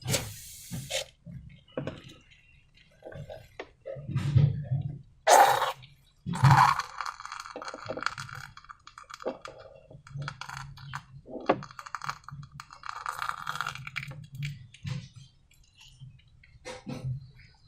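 Irregular clinks, knocks and short scraping and rustling sounds from slime-making materials and containers being handled, one after another with brief pauses between.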